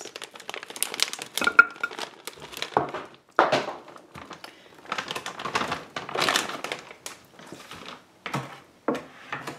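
Plastic bag of fully cooked meatballs crinkling as it is handled, in irregular bursts of rustling.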